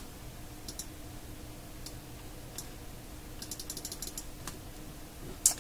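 Computer keyboard typing: a few scattered keystrokes, then a quick run of about ten keys in the middle and a sharper key press near the end, over a faint steady hum.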